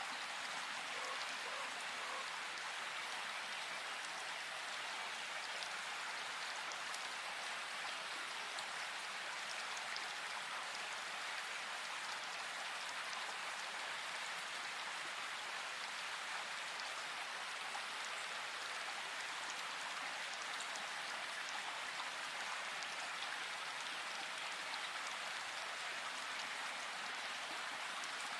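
Steady rain falling in a forest, an even hiss of rain with scattered drops pattering on leaves.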